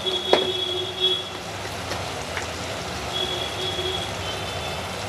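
Chicken pieces sizzling and bubbling in oil in a pan, with a few sharp pops and crackles in the first half; the bubbling is the water the chicken has released boiling off. A faint steady high tone sounds twice in the background.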